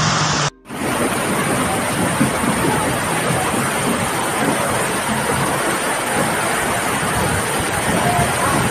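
Floodwater rushing down a narrow street as a loud, steady wash of water noise, with rain falling into it. About half a second in, the sound breaks off for a moment at a cut from another clip.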